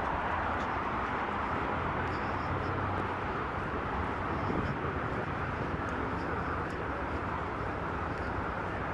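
Motorboat under way: a steady engine drone under a rushing hiss of wind and water.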